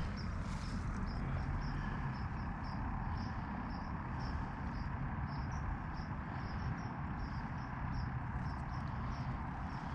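Insects chirping outdoors in a steady series of short, high notes, a few each second, over a steady low background rumble.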